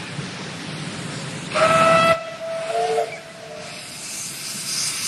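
Steam locomotive sounds: steam hissing, then a short, loud whistle blast about a second and a half in that cuts off suddenly. A fainter second whistle follows, and near the end the hiss of escaping steam swells again.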